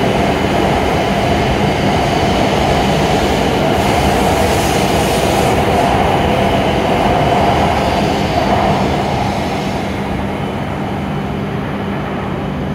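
A W7 series Shinkansen train accelerates out of the station past the platform. It gives a steady running noise of motors and wheels with a held tone over it. The noise dies away in the last few seconds as the last car clears the platform.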